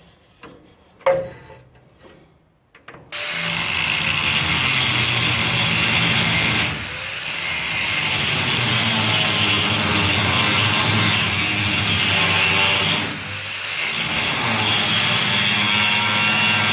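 Angle grinder starting about three seconds in and grinding steadily on the head of a rusted bed-mounting carriage bolt. It eases off twice, its whine dropping and climbing back to speed.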